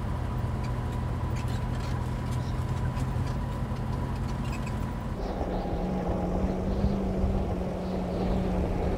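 Old van's engine running steadily, heard from inside the cabin. About five seconds in, the sound changes to a steadier, slightly higher hum with more road noise.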